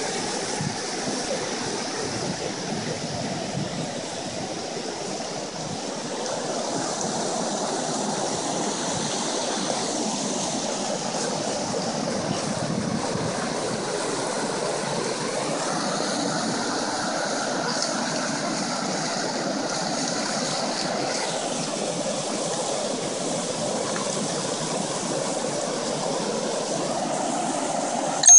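Shallow creek water running over rocks and small cascades: a steady, even rush of water.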